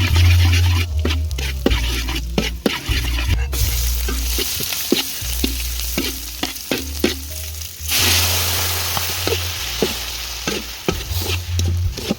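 Food frying and sizzling in a pan, with many short clicks and knocks of a utensil stirring it. The sizzle grows louder from about three and a half seconds in.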